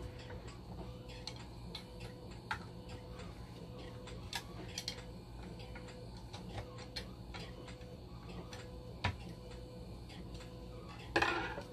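Light, irregular clicks of a hand screwdriver turning the screws that fasten a DC motor into a dialysis machine's blood pump assembly, over a steady low hum. A brief, louder rustle comes near the end.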